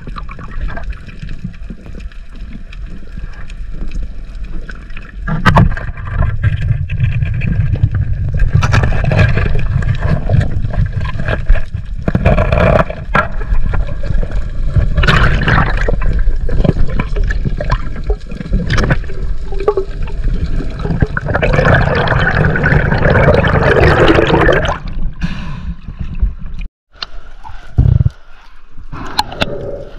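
Underwater sound on a diving camera: water rushing and gurgling over the housing as the diver swims. It grows louder about five seconds in and drops out briefly near the end.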